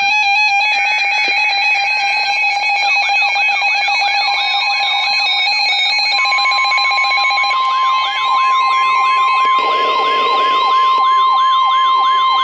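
Several weather radio receivers sounding alerts at once for a severe thunderstorm warning: overlapping electronic alarm tones. Stepped beeps and a fast ticking run through the first part, a warbling chirp repeats about two or three times a second from about three seconds in, and a long steady alarm tone joins about halfway.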